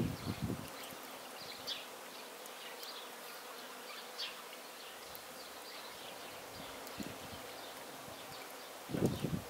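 A flying insect buzzing faintly and steadily, with a few short high chirps from small birds. Low thumps and rustles at the very start and again near the end.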